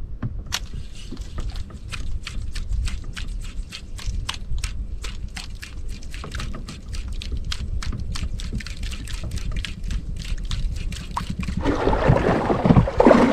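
Rapid sharp clicks, about three a second, over a low rumble of wind on the microphone; about twelve seconds in, a loud rush and splash of water against the boat takes over.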